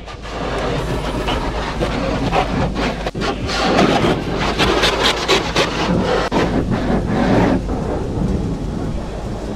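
Pressure-washer jets of water hitting a car's windscreen, windows and body, heard from inside the cabin: a loud rushing, drumming hiss that is loudest in the middle and eases toward the end.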